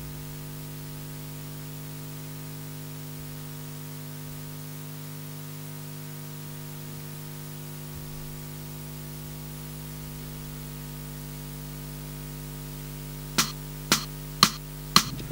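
Steady electrical mains hum with a faint hiss. Near the end come about five sharp clicks, roughly half a second apart, counting in before the music.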